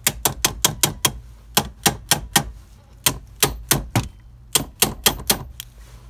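Rubber mallet tapping the bearing retainer on a VW GTI Mk2 steering column shaft to drive it off: quick, light taps in four runs of five or six strikes each.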